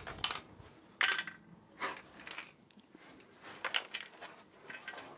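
Removed rear exhaust silencer from a Smart ForTwo 451 being shaken and handled, giving a series of irregular metallic knocks and rattles. The rattling comes from loose internals inside the box, which the mechanic thinks are the baffles coming apart in a worn-out exhaust.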